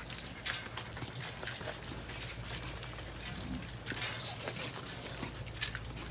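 Dairy cows' hooves clopping and scuffing on the yard as the herd files in, with scattered irregular steps over a steady low hum. There is a brief hiss about four seconds in.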